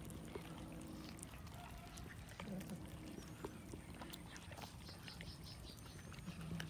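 A group of cats eating a whole cooked chicken: many small wet clicks of chewing and tearing at the meat. A few low growls sound at the start, about two and a half seconds in, and near the end.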